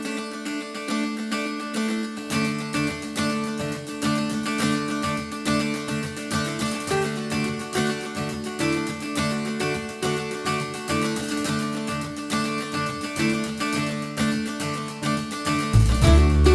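Background music led by plucked acoustic guitar. A strummed rhythm and a bass line join about two seconds in, and a heavier, louder bass comes in near the end.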